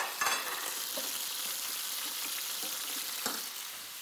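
Flour-dusted chicken pieces sizzling steadily in hot fat in a frying pan, browning to a golden crust. A plate clinks on the stovetop just after the start, and there is a short knock a little past three seconds in.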